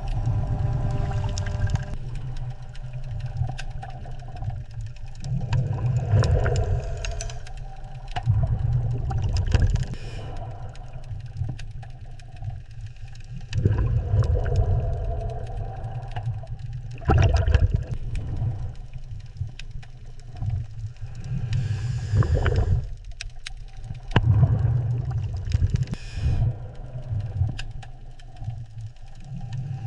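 Deep, continuous watery rumble with gurgling surges that swell and fade every few seconds.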